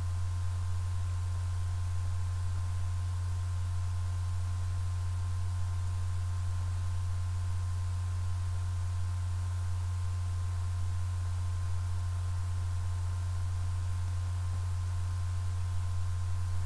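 Steady low electrical hum with a few faint, steady high-pitched tones above it, unchanging throughout.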